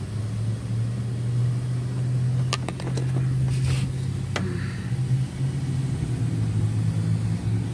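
A steady low mechanical hum, with a few sharp clicks and a short rustle about halfway through as car parts are handled.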